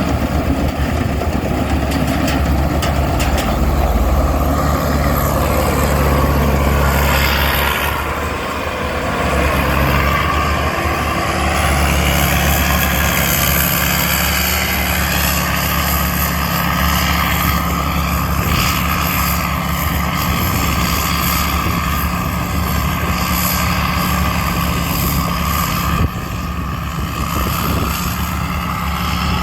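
Tamco rice combine harvester's Isuzu diesel engine running steadily under load as the machine works through the field, with a constant high whine from its drive. The engine note eases briefly about eight seconds in and drops suddenly a few seconds before the end.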